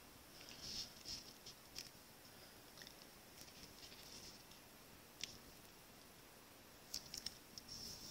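Faint rustling and a few light ticks and taps of paper cardstock being handled by hand, as a glued flower cut-out is set onto a card front and pressed flat.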